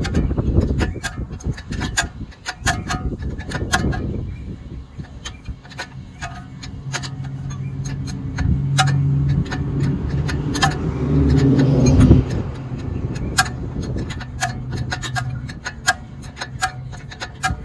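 Hand ratchet clicking in short strokes while a suspension nut on the upper control arm is being loosened. Midway a low engine hum rises, is loudest about twelve seconds in, then fades.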